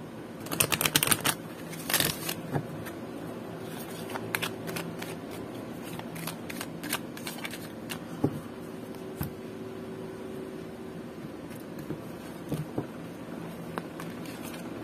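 A deck of oracle cards being shuffled by hand: a quick run of card-edge clicks about half a second in and again near two seconds, then scattered softer taps and slides of cards. A faint steady hum lies underneath.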